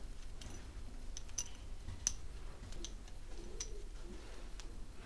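Scattered light clicks and taps of hard 3D-printed plastic parts being handled and fitted together, about eight in five seconds, over a steady low hum.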